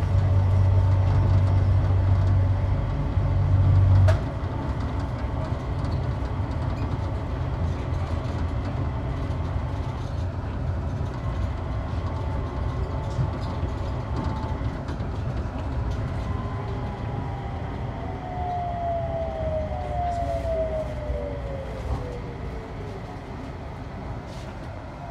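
Rubber-tyred Mitsubishi Crystal Mover LRT train running along its concrete guideway, heard from inside the front car: a steady rumble, with a heavy low hum that drops away about four seconds in. Later a whine falls in pitch as the train slows into the station.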